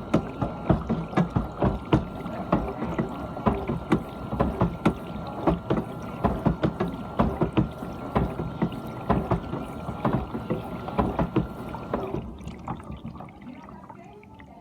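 GE dishwasher mid-cycle: water spraying and splashing inside the tub over a steady whine. The whine and the spraying stop suddenly about twelve seconds in, leaving a fading trickle.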